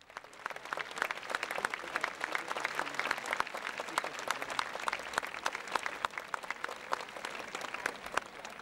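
Audience applauding: a dense patter of many hands clapping that starts abruptly and thins slightly near the end.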